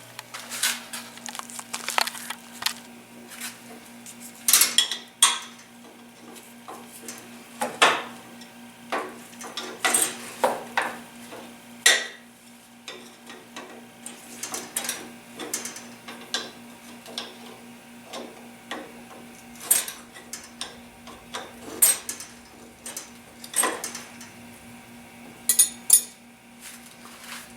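Irregular metallic clinks, knocks and scrapes of tools working the threaded spring collar on an FOA coilover shock, turning it up the body to take the weight off the coil spring; the collar turns stiffly.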